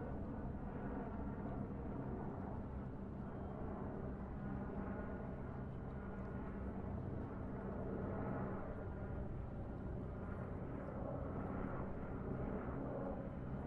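A steady low hum over a constant rumble and hiss, unchanging throughout.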